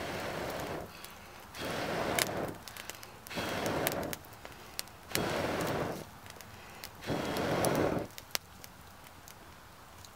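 A person blowing hard into smouldering campfire coals, five long breaths about two seconds apart, to bring the kindling up to flame. Between the breaths the fire crackles and pops.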